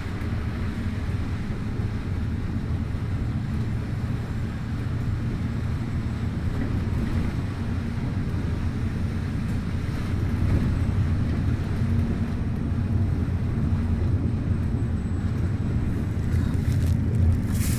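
Bus riding along the road: a steady low rumble of engine and road noise, growing a little louder about halfway through, with a short burst of hissing noise near the end.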